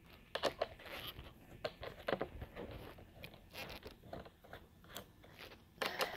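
Irregular clicks, scrapes and rustles of the plastic parts of a robot vacuum being handled and taken apart, with a louder cluster of clicks near the end.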